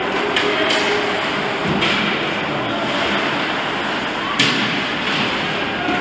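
Ice hockey play in a rink: a steady wash of skating and crowd noise, with a few light knocks of sticks and puck and one sharp crack about four and a half seconds in.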